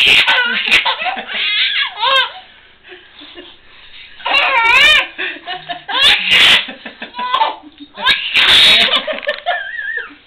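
Baby laughing in several loud bursts, with adults' voices between.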